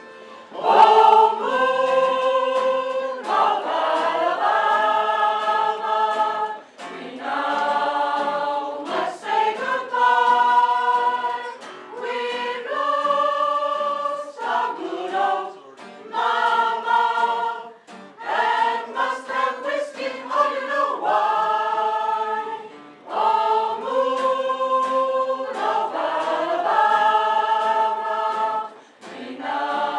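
Small choir of women's voices singing a song in harmony, held chords in phrases broken by short breaths; the singing comes in loud about a second in.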